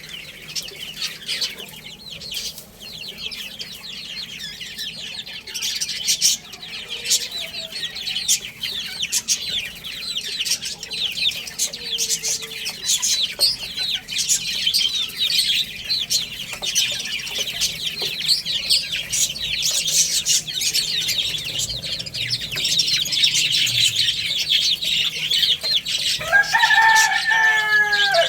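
A flock of baby chicks peeping continuously, many short, high, falling peeps overlapping. Near the end, a single lower call from an adult chicken.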